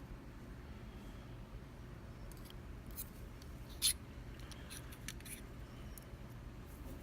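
Small brass lock pins and tweezers clicking lightly against each other and the work surface as a euro cylinder's pin stack is sorted out. One sharper click about four seconds in, over a steady low hum.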